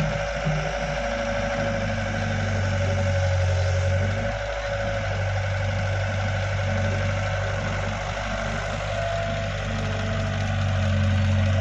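KATO crawler excavator's diesel engine running steadily as the machine digs and swings, a continuous drone that grows a little louder near the end.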